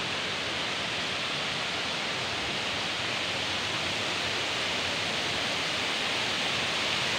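Steady rush of a waterfall cascading over rock ledges, growing gradually a little louder.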